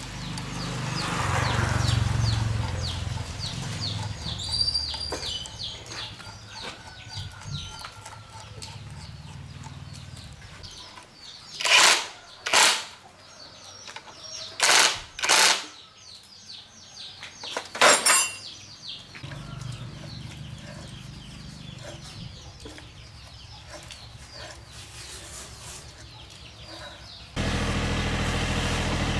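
Cordless impact wrench driving the bolts of a rickshaw rear-axle differential's bearing caps, run in five short bursts, in two pairs and a single one, over about seven seconds midway. Near the end a steady low hum cuts in abruptly.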